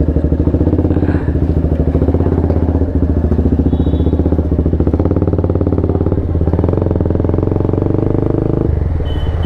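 A single-cylinder motorcycle engine runs at low speed with an even, rapid pulse as the bike pulls away and rolls slowly. The note changes about six seconds in and dips briefly near the end.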